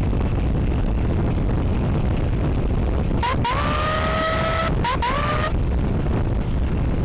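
Wind and road rumble from a moving motorbike. About three seconds in, two short electronic siren blips sound: each rises quickly and then holds a steady tone, the first lasting about a second and a half, the second about half a second.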